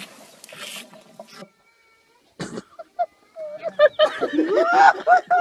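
An animal calling: a run of loud, wavering cries from about three seconds in, after a quiet stretch broken by one sharp click.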